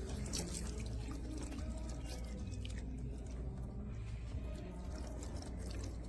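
Water running and splashing over hands as they are rinsed, washing off a sugar scrub.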